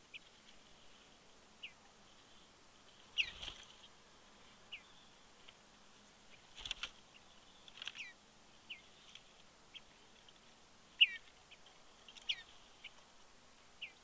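Western bluebird calling: short, high notes that slur downward, about one a second, some in quick pairs. There are two brief thumps about three and seven seconds in.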